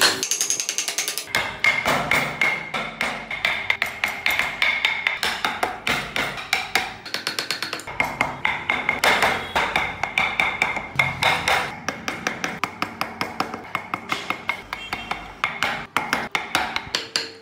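Rapid, rhythmic taps of a mallet driving a chisel into hardwood, about four or five strikes a second, while the carver cuts the slats of a model car's grille.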